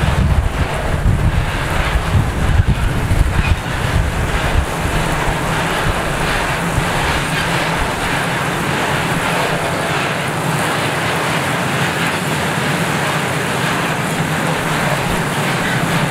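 Freight train of hopper wagons rolling past at a steady pace: continuous wheel-on-rail rumble and hiss. Wind buffets the microphone during the first few seconds.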